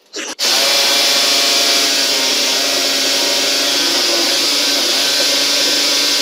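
Corded electric drill running steadily as its bit bores into the cabinet panel. It is a steady motor whine with a strong hiss, and it starts about half a second in.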